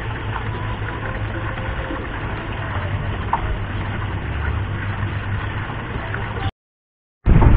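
Steady low mechanical hum, like a motor running. It cuts out abruptly about six and a half seconds in, and a louder rumble starts near the end.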